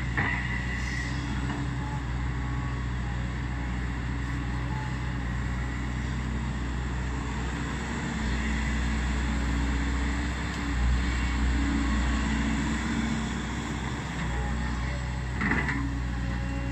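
Volvo EC210B excavator's diesel engine running steadily, rising in level for a few seconds about halfway through as it works under hydraulic load. A sharp knock sounds right at the start and another near the end.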